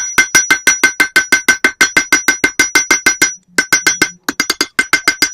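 Hand hammer striking hot flat iron stock on an anvil in quick, even blows, about six a second, each with a high metallic ring, spreading out the end of the bar. The hammering breaks off briefly about three and a half seconds in, then resumes.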